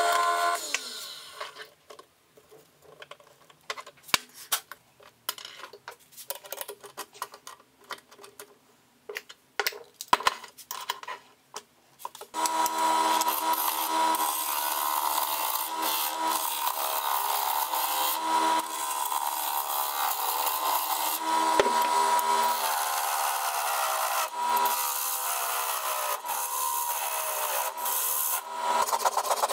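Wood lathe spinning a wooden blank while a hand-held turning tool cuts into it: a loud, steady scraping and shaving noise over a steady machine tone, starting about twelve seconds in. Before that, after about a second of the lathe running, there is a quieter stretch of scattered clicks and taps.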